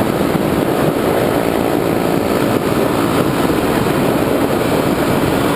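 Motorcycle engine running steadily while riding at speed.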